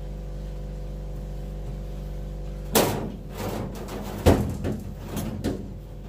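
A tool and towel being handled at a metal sandblasting cabinet while it is wiped down: two sharp knocks about a second and a half apart, with scuffing, rubbing and small clicks around them, over a steady low hum.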